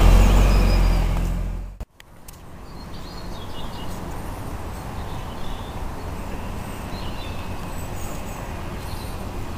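Low rumble of a lorry's diesel engine running close by, which cuts off abruptly about two seconds in. After it comes a steady outdoor background of distant traffic with a few faint bird chirps.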